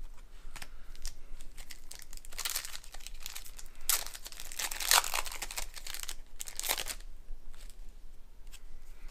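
Foil trading-card booster pack wrapper being torn open and crinkled by hand, a run of short crackles with the loudest about five seconds in.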